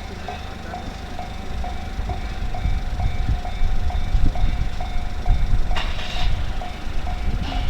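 Japanese level-crossing warning alarm clanging about twice a second while a train rumbles past. Two brief harsh noises cut through near the end.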